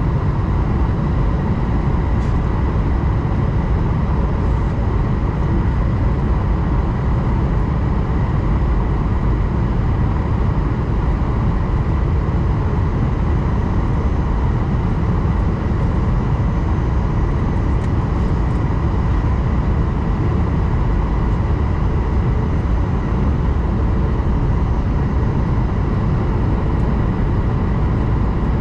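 Steady cabin noise inside an Airbus A220-100 airliner: the roar of its Pratt & Whitney geared turbofans and the airflow, heaviest in the low end, with a faint steady whine above it.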